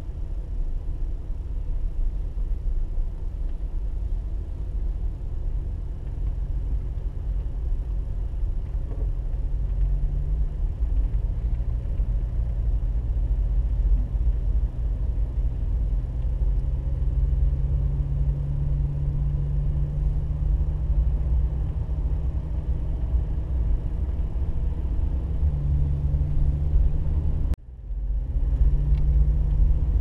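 Car driving slowly, heard inside the cabin: a steady low rumble of engine and tyres, with the engine tone shifting a little in pitch. The sound cuts out for a moment near the end.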